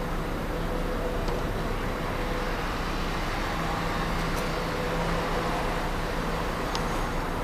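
Steady outdoor background noise with a faint low hum, like distant road traffic.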